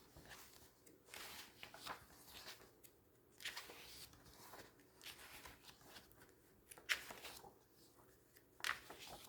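Faint paper rustling as the glossy pages of a Zoobooks magazine are flipped through, a soft swish of paper every second or two, with a slightly sharper page turn near the end.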